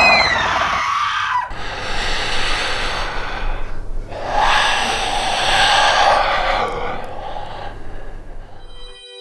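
Horror jump-scare sound design: a ghostly creature's shriek rises sharply in pitch and tails off within the first second and a half. It is followed by two swells of noisy, rushing noise that cut off abruptly just before the end.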